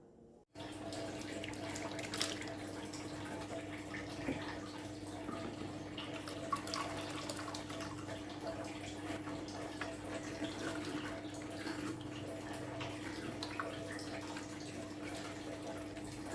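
Water-thinned ground herb paste being poured through a strainer, with liquid trickling and dripping and small splashes, over a steady low hum.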